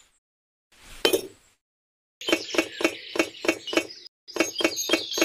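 Light clinks: a single clink about a second in as a miniature clay brick is set down, then two runs of quick, evenly spaced clinks at about four a second.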